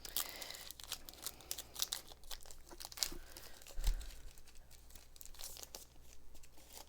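Crinkling and tearing of a foil Pokémon booster pack wrapper being handled and opened, a run of small sharp crackles, with a soft low bump about four seconds in.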